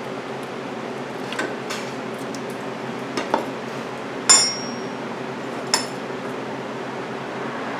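A few light metallic clinks of hand tools or parts being handled, the loudest about four seconds in with a short ring, another near six seconds. Under them runs a steady low hum.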